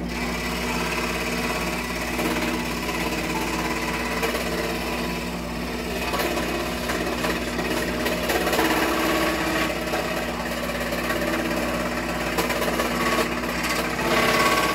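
Wen scroll saw running and cutting wood, its reciprocating blade making a steady, fast mechanical chatter.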